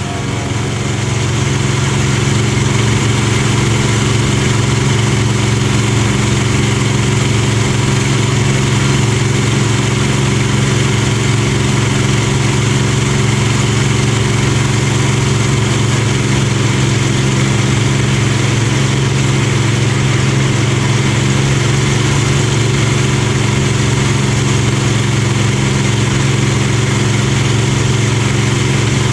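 Supermarine Spitfire's Rolls-Royce Merlin V12 engine running at a steady speed, a deep even drone with a hiss of air over it, fading up over the first two seconds and then holding steady.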